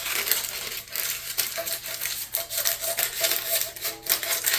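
Scissors snipping parchment paper in quick repeated cuts, with the paper rustling, as the excess sheet is trimmed around a 9-inch cake pan.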